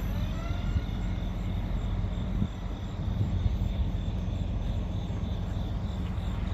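Small electric RC foam plane (SG F22 Raptor) flying overhead: a faint motor-and-propeller whine that glides up in pitch in the first second or two, over a steady low rumble of wind on the microphone.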